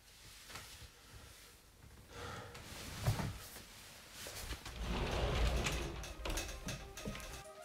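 Scattered knocks and rustling, with one louder thump about three seconds in and a longer stretch of rustling and low rumble around five seconds in.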